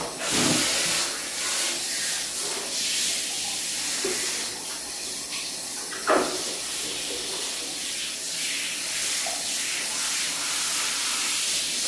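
Water spraying steadily from a handheld shower head over a wet cat sitting in a plastic basin, the rinse stage of its bath.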